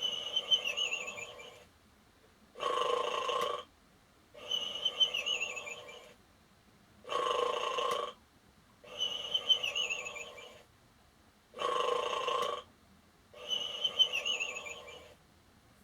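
Interactive toy dog playing its electronic snoring sound on a loop. Each cycle is a snore on the in-breath followed by a wavering, falling whistle on the out-breath, repeating evenly about every four and a half seconds.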